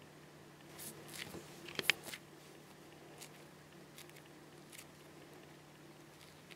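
Faint rustling and soft clicks of fingers squeezing and handling slow-rising foam squishy toy donuts, busiest about one to two seconds in, then a few scattered soft ticks, over a low steady hum.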